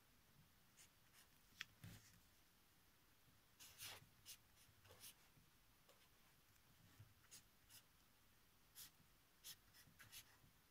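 Marker pen writing on paper, heard as faint, short, irregular strokes.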